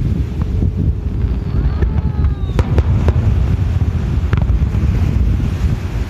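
Wind rumbling on the microphone, with the sharp bangs of aerial firework shells bursting: one about half a second in, a close pair about two and a half seconds in, and another past four seconds. Falling whistles come just before the pair.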